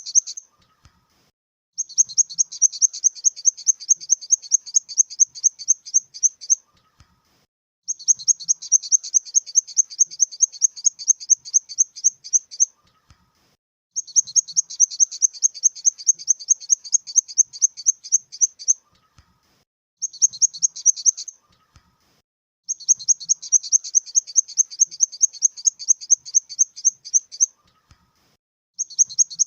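Grasshopper stridulating: high-pitched pulsed chirping, about six to seven rasps a second, in bursts of about five seconds with short pauses between them.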